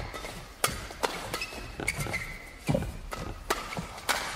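Badminton rackets striking a shuttlecock in a fast doubles rally: a string of sharp smacks, one every half second to a second, with short squeaks of court shoes in between.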